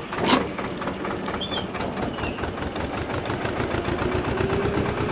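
Narrowboat engine running steadily, with a brief falling whoosh just after the start and a few small bird chirps.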